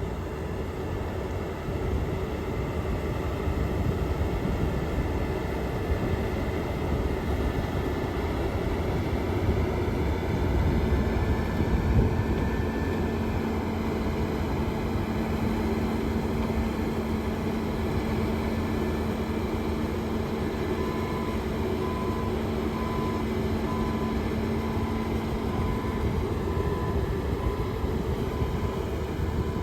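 New Holland combine harvester running steadily while cutting wheat, with a dense machine drone and a few steady tones. A row of short electronic beeps, about one a second, sounds in the last third.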